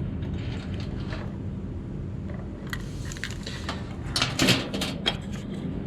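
Small clicks and scrapes of handling a replacement ignition lock cylinder with its key and spring-loaded tumblers, over a steady low hum. The clicks come mostly in the second half.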